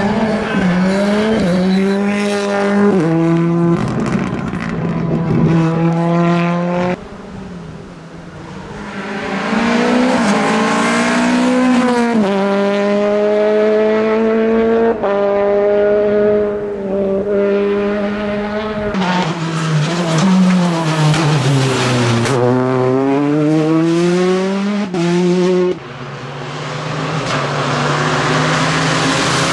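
Rally cars passing one after another on tarmac stages, engines at high revs climbing in pitch and dropping sharply at each gear change.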